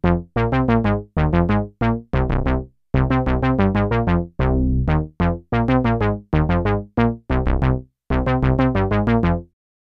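Sequential Prophet-6 analog polysynth playing a staccato sequence of short plucked notes, each bright at the attack and quickly dulling, in quick runs broken by brief gaps.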